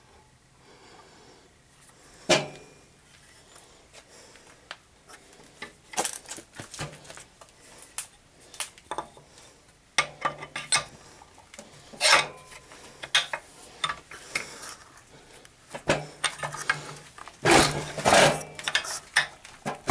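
Steel bench vise being cranked tight on the plastic heads of old action figures: irregular sharp metallic clinks, clicks and scrapes from the handle and jaws, growing busier about halfway through, with the loudest cluster near the end.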